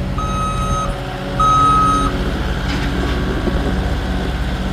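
A reversing vehicle's backup alarm sounds two long, steady beeps, the second one louder, and then stops about two seconds in. A low engine rumble runs steadily underneath.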